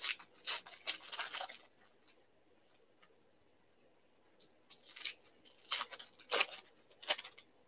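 Plastic trading-card pack wrappers crinkling and tearing as packs are opened by hand, in two spells of rustling with a pause of a few seconds between.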